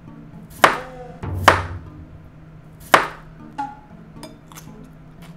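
Kitchen knife cutting a cucumber on a plastic cutting board: three sharp strikes in the first three seconds and a lighter one soon after, over light background music.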